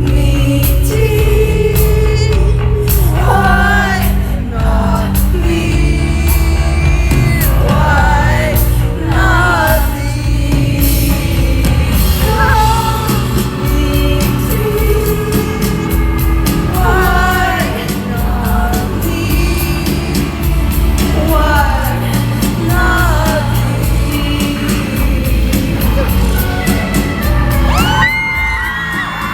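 Live pop-rock song with a woman singing lead over a full band and a heavy, steady bass line, in a large, echoing hall. Near the end, high cries and whoops from the audience rise over the music.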